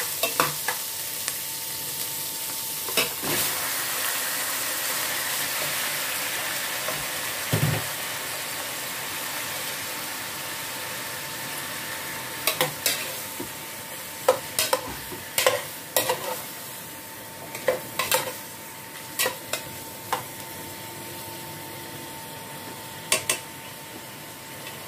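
Ginger and onion sizzling in hot oil in an aluminium pot while being stirred with a metal spoon, then raw chicken pieces sizzling more softly as they are stirred. A dull thump comes about eight seconds in, and in the second half the spoon knocks sharply against the pot many times.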